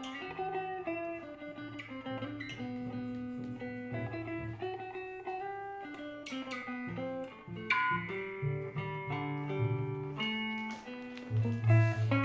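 Improvised guitar music: a run of plucked, held guitar notes over low bass notes, swelling louder with heavier low notes near the end.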